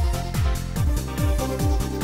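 Electronic dance music with a steady four-on-the-floor kick drum, a little over two beats a second, under sustained synth chords.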